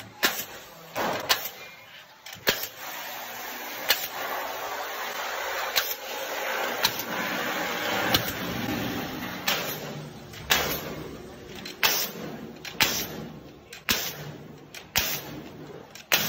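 Ductmate pneumatic fastener (air-powered nail gun) firing nails into a galvanized sheet-metal duct's flange frame: about a dozen sharp shots, unevenly spaced, roughly one every second or so. Between the shots there is a stretch of steady noise in the middle.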